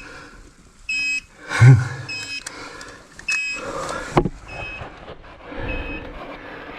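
Portable gas detector's low-oxygen alarm sounding short high beeps about once a second, the sign of oxygen well below normal in the mine air. Heavy breathing runs underneath.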